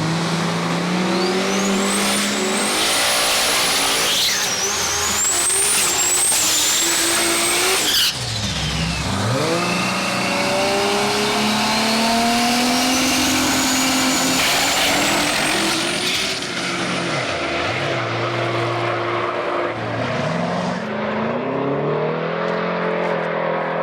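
Drag-race cars' engines running hard, with revs held and then climbing in pitch through the gears, and a sharp drop about eight seconds in. A high whine rises and falls with the revs, typical of a supercharger.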